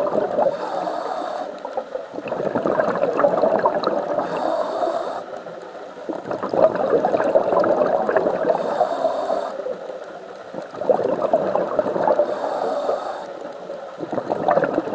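Scuba diver breathing through a regulator: a short hissing inhale, then a longer rush of bubbling exhaled air, repeating about every four seconds for four breaths.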